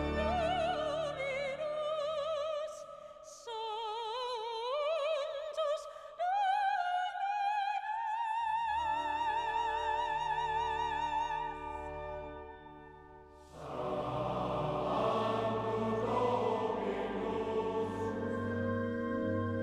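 A soprano singing a slow solo line with a wide vibrato. Low sustained chords join her about eight seconds in, and about two-thirds of the way through a much fuller sound swells in beneath her held notes.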